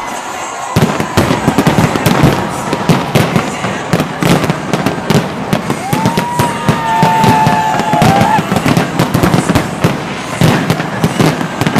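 Fireworks display going off: a dense run of bangs and crackling that starts about a second in, with a whistling tone held for a couple of seconds midway.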